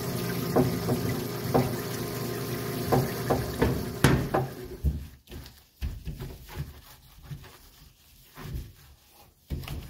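Parts washer pump running with solvent pouring from its flow hose onto an aluminium valve cover being scrubbed, with a few sharp knocks. About four seconds in it cuts off after a click, leaving quieter rubbing and handling sounds of the cover being wiped with a cloth.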